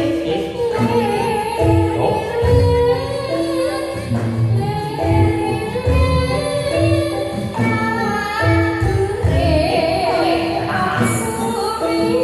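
Javanese gamelan music accompanying a jathilan dance: a woman sings a wavering melody over repeated metallophone notes and regular drum beats.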